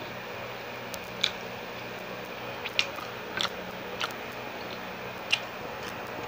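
Close-up chewing of a siomai dumpling: a handful of short, wet mouth smacks spaced irregularly over a steady low hum.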